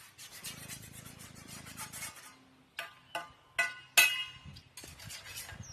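Hard objects rattling and scraping quickly for about two seconds, then several sharp clinks that ring briefly, the loudest about four seconds in.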